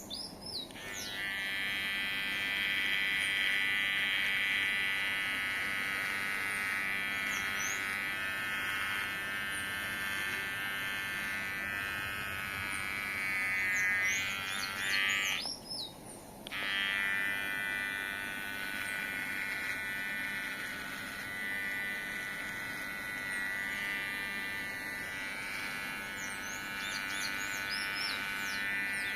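Kemei electric hair clipper buzzing steadily as it cuts beard stubble, stopping for about a second around the middle and then running again. Birds chirp faintly now and then.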